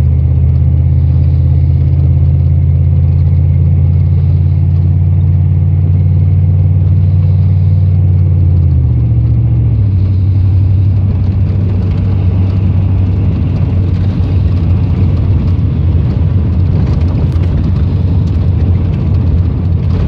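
Vehicle engine and road drone heard from inside the cab while driving: a steady low note that drops in pitch about nine seconds in as the vehicle slows, then a rougher, uneven rumble as it creeps along a snow-covered lane.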